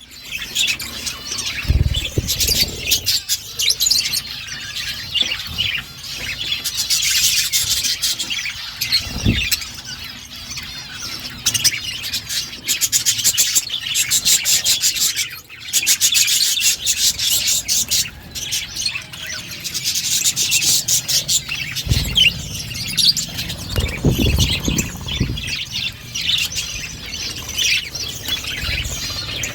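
A flock of budgerigars chattering and warbling without a break, busy and high-pitched, with a few dull low thumps scattered through.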